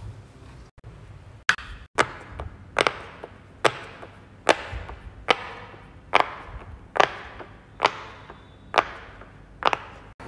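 Round silicone pop-it fidget toy being pressed one bubble at a time: a steady series of sharp pops, about one a second, each with a short ringing tail.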